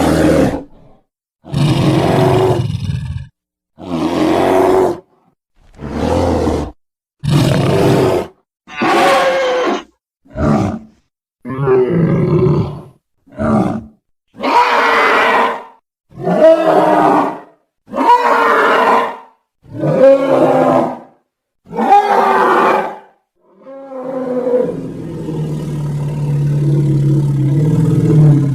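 Custom giant-gorilla roar sound effects: a string of about a dozen short, separate roars, each about a second long with brief silences between, followed near the end by one longer drawn-out roar.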